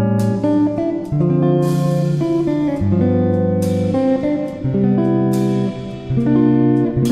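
Instrumental background music led by guitar, with chords struck about every two seconds and held between strikes.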